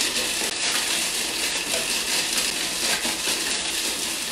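Electric food processor running steadily, grinding dry sprouted-grain toast into breadcrumbs.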